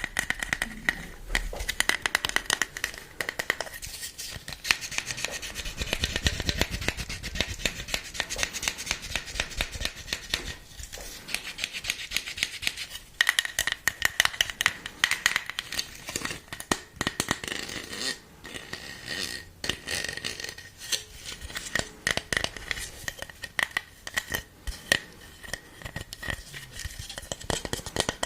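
Close-miked rapid tapping and scratching on a hard object, many quick sharp clicks in a steady stream with short pauses.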